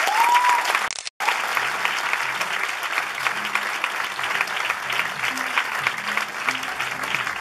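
Theatre audience and cast applauding at a curtain call, a dense steady clapping, with a short rising whistle near the start. The sound cuts out for an instant about a second in, and from about three seconds in soft music with low notes plays under the applause.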